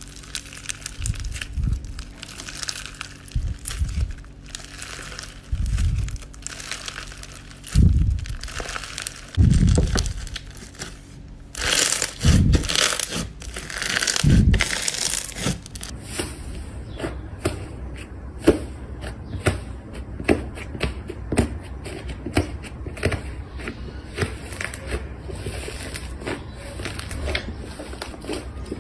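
Slime being squeezed and pressed by hand: irregular low squishing thuds with crackly bursts. From about halfway it changes to a dense run of small clicks and pops.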